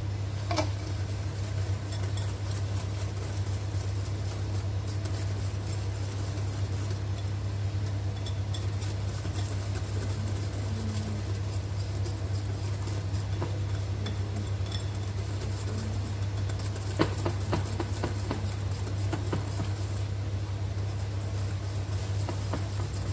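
A wire whisk stirs milk powder into a wet batter in a glass bowl, with a few light clinks against the glass, one sharper clink about seventeen seconds in. A steady low hum runs underneath throughout.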